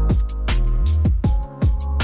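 Background music with deep bass and a steady drum beat.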